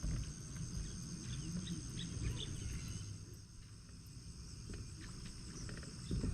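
Outdoor lakeside ambience: a steady high insect drone with a few faint, short bird chirps over a low rumble of wind.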